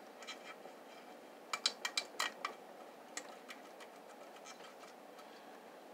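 Light clicks and scrapes of hard plastic and a hand tool as a CRT's deflection yoke and its plastic retaining pieces are pried at on the tube neck, with a quick run of several sharp clicks about one and a half to two and a half seconds in.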